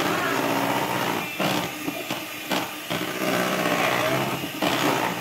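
Handheld electric mixer running steadily, its beaters whirring through banana cake batter in a glass bowl, with a few short knocks.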